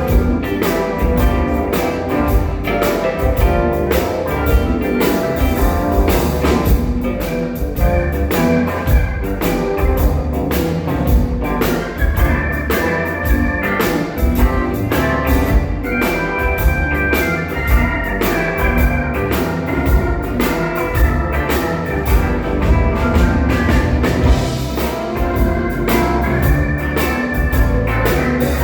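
A band playing music, with a drum kit keeping a steady beat over bass and sustained keyboard or guitar tones.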